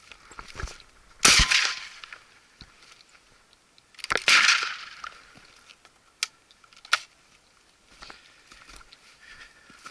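Two shotgun shots about three seconds apart, each with a sharp report and a trailing echo, followed a couple of seconds later by two sharp clicks.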